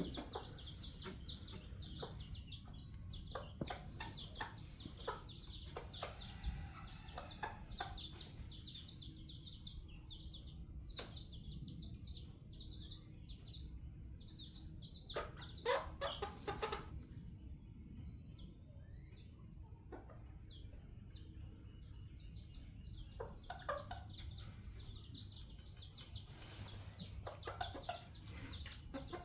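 Silkie chicks peeping in frequent short, high calls, mixed with the lower clucking of their mother hens as they feed; the clucking is loudest about halfway through.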